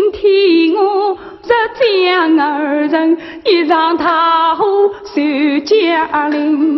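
A woman singing a Yue opera aria, holding long notes with a wide, wavering vibrato.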